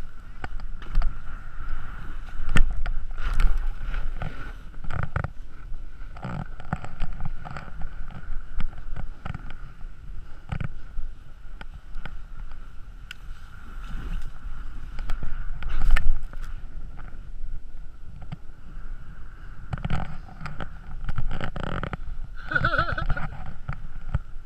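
Skis sliding and scraping through soft, cut-up snow, with a low rumble and many sharp knocks and thumps as they ride over bumps.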